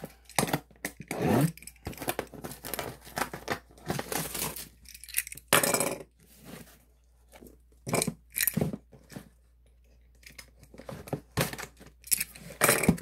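Plastic shrink-wrap being cut and torn off a boxed trading-card product, crinkling in irregular bursts with short pauses between them.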